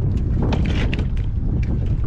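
Small fishing boat under way: its motor running steadily, with wind buffeting the microphone.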